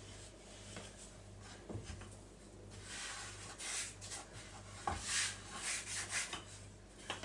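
A wooden rolling pin and hands working shortcrust dough on a floured wooden board. From about three seconds in there is a run of rubbing, scraping strokes, with a few soft knocks.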